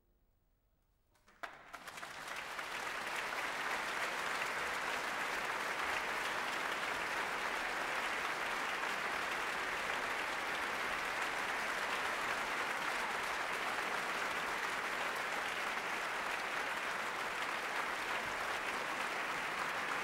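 About a second of near silence, then a large concert-hall audience breaks into applause at the end of an orchestral piece. The applause builds over a second or so and then holds steady.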